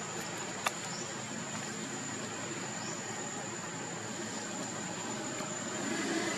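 Steady outdoor background hiss with a thin, high, unbroken tone, and one sharp click a little under a second in.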